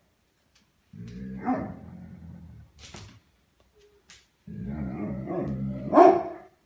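A Briard dog growling in two bouts, each rising into a bark, the second, near the end, louder.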